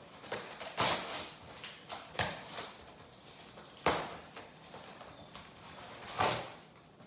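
Brown packing paper being torn and pulled off a wrapped car seat: a series of sharp ripping, crackling tears, four main ones a second or two apart with smaller rustles between.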